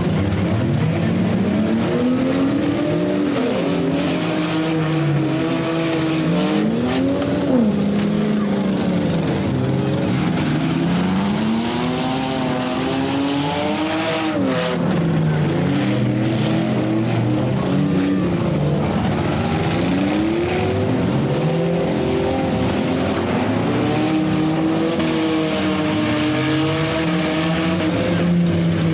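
Several demolition derby cars' engines revving up and down at once, their pitches rising and falling over one another, with a sharp bang about seven and a half seconds in.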